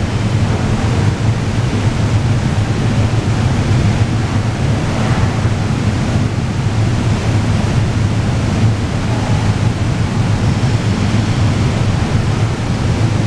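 Ambient noise of an underground railway station: a steady low rumble and hiss over a strong low hum, holding an even level.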